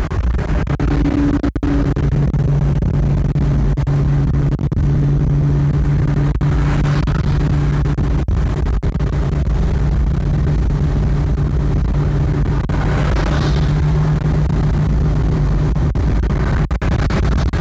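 Fiat Coupe at steady motorway cruise, heard from inside the cabin: a constant low engine drone over tyre and wind hiss. The hiss swells briefly twice.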